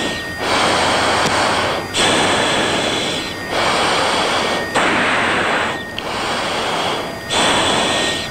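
F-16 pilot's heavy breathing picked up by the cockpit audio: about six loud, regular breaths, each a rush of air just over a second long with a short break between.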